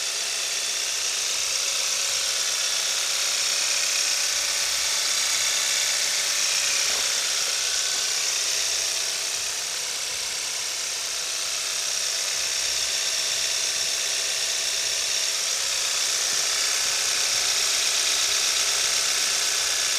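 A 2014 Kia Optima SX's turbocharged four-cylinder engine catches right at the start and then idles steadily, a hissy, high-pitched running sound. It has a freshly fitted oil catch can on its PCV line.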